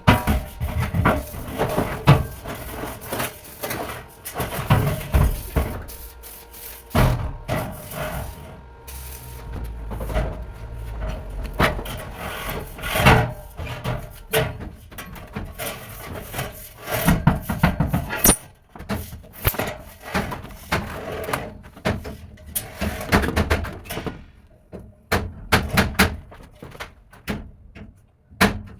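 Irregular knocking, tapping and scraping from hand work on a steel window during installation.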